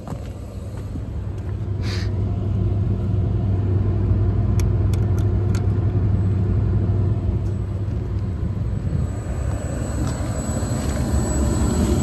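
York rooftop gas package unit running on heat, a steady low rumble that grows louder over the first few seconds as the unit is stepped up to second-stage heat. A few light clicks come about halfway through.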